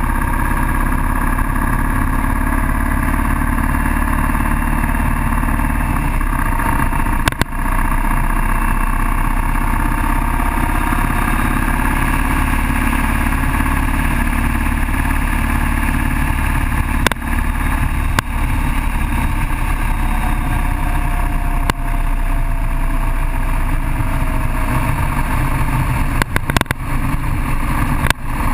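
Cruiser motorcycle engine running steadily at road speed under heavy wind noise over a bike-mounted camera's microphone, with a few brief knocks.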